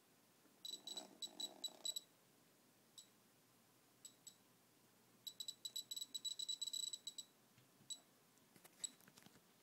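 DIY Geiger counter with a 7317 pancake GM tube, its speaker giving short, sharp high clicks, one per detected count. The clicks come irregularly: a quick run about a second in, single clicks, then a faster, denser run of about two seconds from about five seconds in, as a radioactive sample is brought near the tube.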